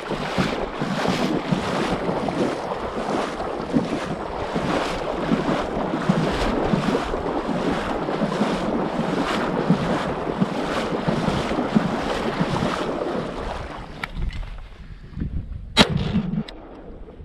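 Water sloshing and splashing in a steady rhythm, a little under two splashes a second, then tapering off. Near the end comes a single sharp click, followed by a brief low hum.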